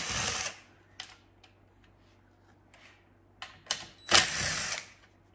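Cordless drill spinning the pan bolts out of a 727 automatic transmission's oil pan in two short bursts, one at the start and one about four seconds in, with a few light clicks between.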